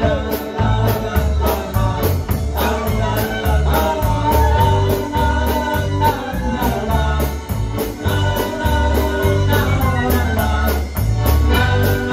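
Live dance band playing an upbeat tune on trumpet, electric guitar, drum kit and keyboard over a steady bass beat.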